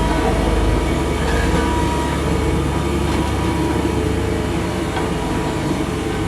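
Heavy road-construction machinery working close by: a diesel engine running with a steady low rumble.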